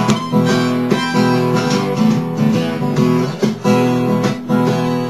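Acoustic guitar strummed in a steady rhythm, chords ringing.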